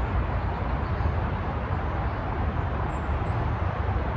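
Steady outdoor background noise: a constant low rumble with an even hiss above it.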